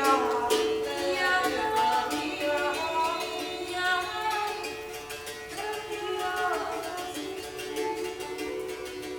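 Free musical improvisation: a sung, wordless-sounding vocal line that slides between pitches over a plucked string instrument, gradually getting quieter.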